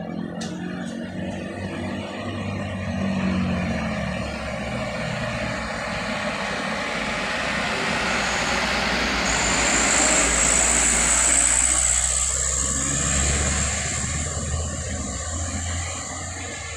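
Loaded sugarcane trucks' diesel engines and tyres passing close by, the rumble and road noise building to a peak about ten seconds in and then fading as they pull away.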